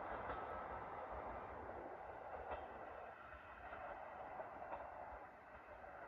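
Diesel train running at a distance, its sound a steady rumble that slowly fades.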